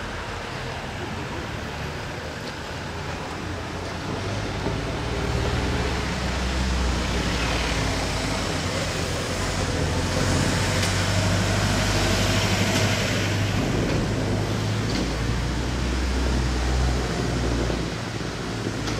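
A large engine running with a steady low hum, growing louder about four seconds in and easing off near the end.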